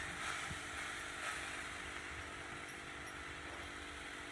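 Soft scraping of ground masala paste out of a mixer jar with a spoon into a clay pot, over a steady background hum with a faint hiss.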